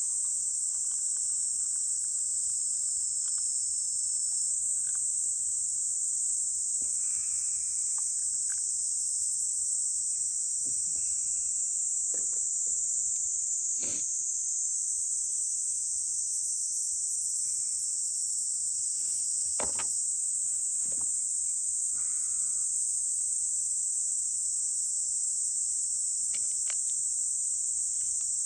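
Steady, high-pitched chorus of summer insects, with a few faint clicks and short calls scattered through it.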